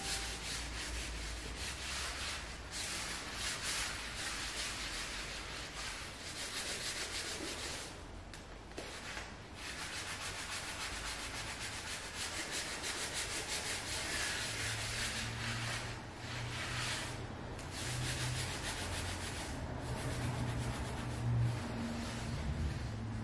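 A sponge scrubbed by hand back and forth over a wooden parquet floor: steady, rapid rubbing strokes, with a few short pauses between bouts.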